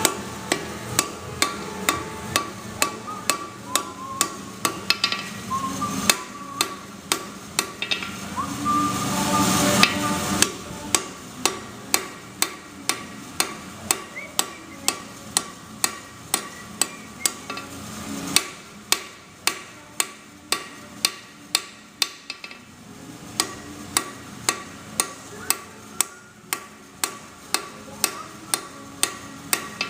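Blacksmith's hand hammer striking hot steel on an anvil in a steady rhythm, about two blows a second, with a few short pauses. A rushing noise runs underneath for roughly the first third.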